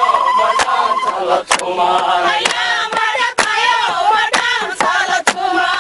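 A group of voices singing together in a chant-like melody, with sharp hand claps keeping time roughly once a second.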